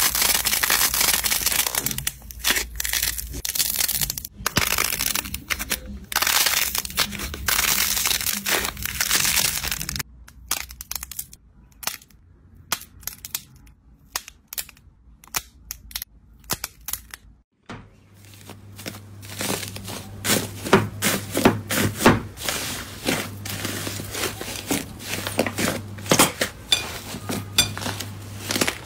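Hands cracking the hardened crust of a pink slime, a dense crackling. About ten seconds in, green slime is squeezed between the fingers with sparse soft clicks and pops. From about seventeen seconds on, pink slime is kneaded in a glass bowl with quick crackling pops over a low hum.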